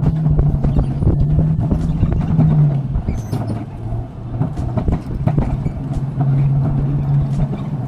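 Alpine coaster cart rolling fast along its metal rail: a continuous rumble with a rattle of small clicks, and a steady low hum that fades out midway and returns.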